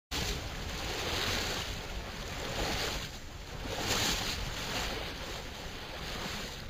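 Sea surf washing onto a beach, the rush of the waves swelling and falling back several times.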